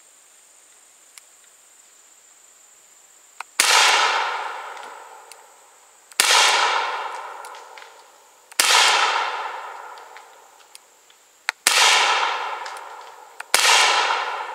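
Five .45 Colt cowboy-action rounds fired double action from a Rossi Circuit Judge revolving carbine, two to three seconds apart. Each shot is followed by a long fading echo.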